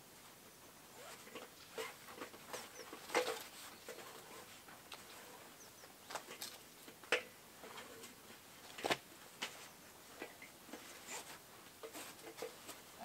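Scattered light clicks and knocks with faint rustling between them, irregular and a few each second at most, from someone working on a ladder at a tree trunk, handling a rope and the ladder.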